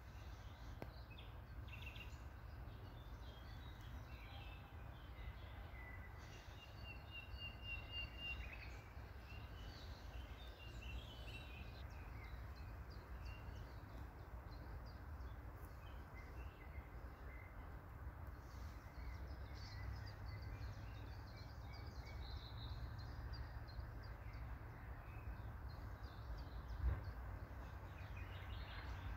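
Faint outdoor ambience: distant birds calling and singing in short chirps and trills over a steady low rumble, with one brief knock near the end.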